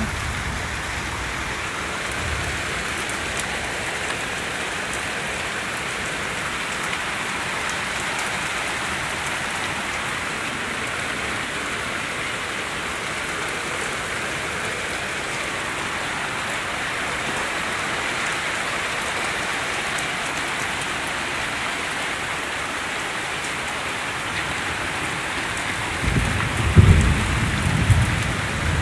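Heavy rain falling as a steady hiss. About 26 seconds in, low rumbles of thunder start.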